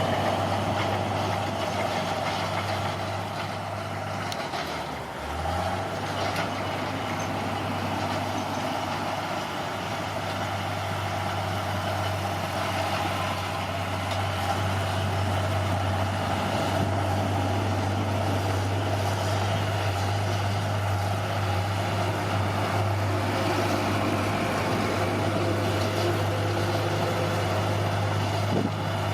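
Bulldozer's diesel engine running steadily, its note dipping briefly about five seconds in and then recovering.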